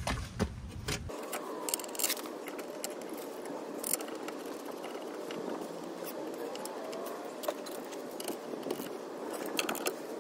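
Metal clinks, knocks and scrapes from handling a Chevy Equinox rear brake caliper mounting bracket and its bolts while fitting it back over the rotor, with a quick run of clicks near the end, over a steady hiss.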